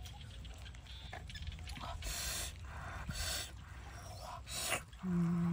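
Several short rustling, scraping noises as glass noodles and fish are stirred and lifted in a wok, then a brief hummed "mm" near the end.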